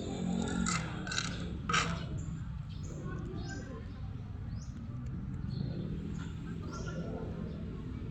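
Birds chirping in short, high calls over a steady low background rumble, with three short, sharp noises in the first two seconds.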